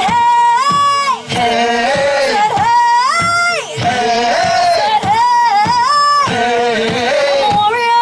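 A live band playing: a lead melody line with sliding notes over a steady drum beat.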